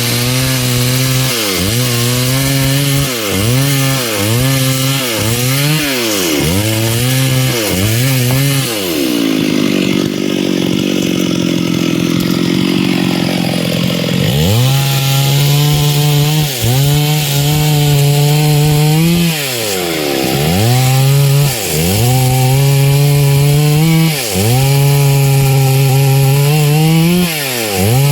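Stihl MS 382 two-stroke chainsaw cutting a large log, its engine speed dipping and recovering again and again as the chain bites into the wood. About nine seconds in it eases to a lower speed for a few seconds, then revs back up and cuts on with fewer, longer dips.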